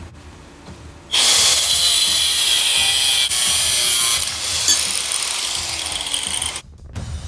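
Kobalt angle grinder with a cutting wheel cutting through a steel steering shaft held in a vise. It starts about a second in, a loud grinding with a high whine over it, and stops abruptly near the end.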